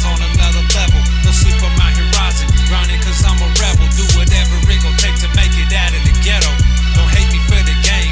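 Hip-hop backing music: a heavy, steady bass line under regular drum hits.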